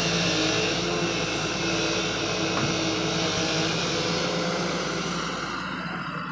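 Excavator's diesel engine running steadily with a broad mechanical noise and wavering engine tones, getting quieter near the end.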